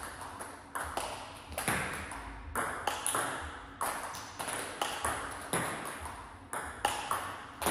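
Table tennis ball being played in a drill: sharp pinging clicks of the ball off the bats and the table, about two a second at an uneven pace, each with a short ring after it.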